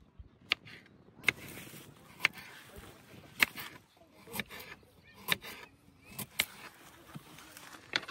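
A series of sharp knocks, roughly one a second, some louder than others, over a faint hiss.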